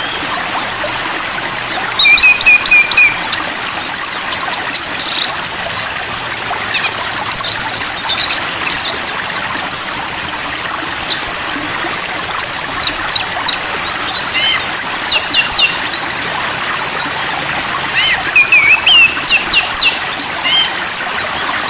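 Songbirds calling in quick, high chirps and short trills that come in clusters, over a steady hiss.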